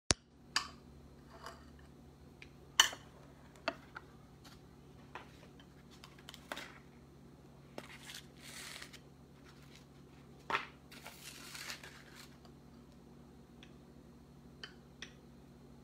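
Metal spoon and fork clinking and scraping against ceramic bowls and plates while eating rice and vegetable soup: a dozen or so separate sharp clinks, the loudest about three seconds in, with two short rustling scrapes around the middle.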